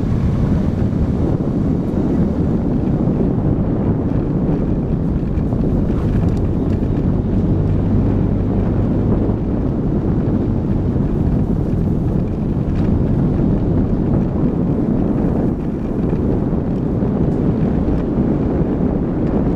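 Car driving along a gravel track: a steady low rumble of engine and tyres on gravel, with wind buffeting the microphone.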